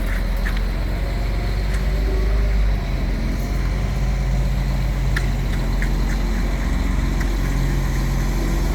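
Concrete mixer truck's diesel engine running steadily during the pour, with a few faint clicks over it.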